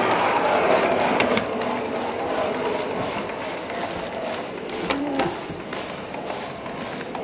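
Gas-fired live-steam model tank locomotive running on its track, its exhaust beating in an even rhythm over a steady hiss of steam.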